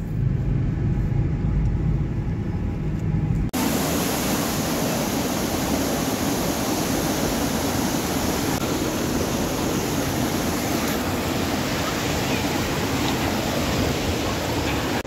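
Low, steady road rumble inside a moving car, cut off abruptly about three and a half seconds in. A steady rushing noise of fast-flowing river water follows and runs on unchanged.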